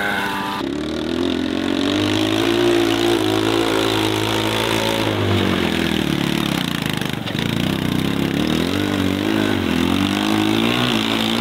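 Small engine of a kids' mini jeep running under way, its pitch sagging about halfway through and climbing again near the end as the throttle changes.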